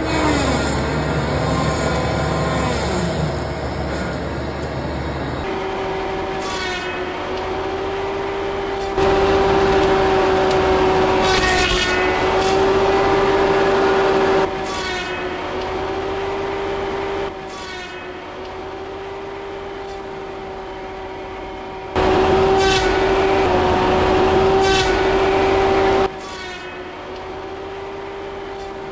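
Skid steer engine running, with the Baumalight DSA530 tree saw's hydraulically driven circular blade spinning with a steady high whine. Short rasping bursts come every few seconds as the blade cuts through brush and small trees. The loudness steps up and down abruptly several times.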